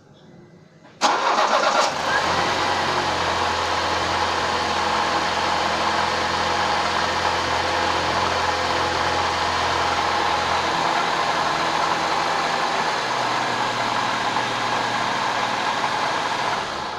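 ZMZ-406 2.3-litre inline-four petrol engine cranked and catching about a second in, then idling steadily, and shut off near the end. It runs with a knock that the owner puts down to the water pump.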